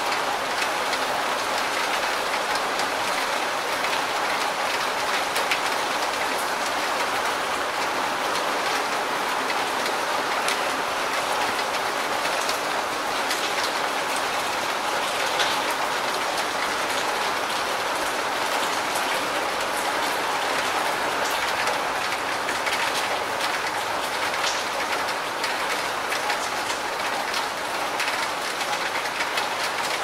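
Steady rain: a dense, even patter with scattered sharper drop ticks.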